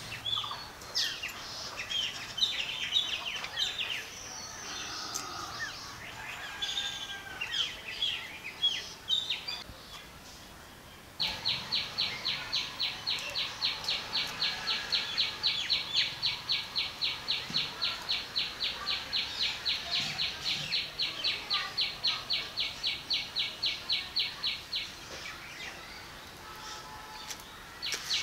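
Outdoor birds chirping irregularly. About eleven seconds in, a loud, even chirping starts, about three pulses a second; it stops a few seconds before the end and starts again at the very end.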